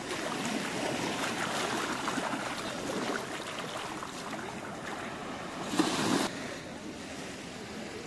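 Small waves washing onto a sandy beach, a steady soft surf. About six seconds in there is a brief, louder rush of noise lasting about half a second.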